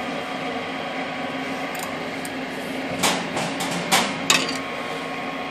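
Two-stage gas furnace's draft inducer motor running with a steady hum during pre-purge, before the burners light. A few short clicks and knocks come between about three and four and a half seconds in.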